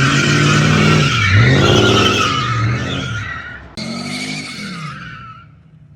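Mercedes-Benz W124 E500's M113 V8 revving while the tyres squeal in a drift, the engine pitch dipping and climbing again. After an abrupt cut nearly four seconds in, a second burst of engine and tyre squeal fades away.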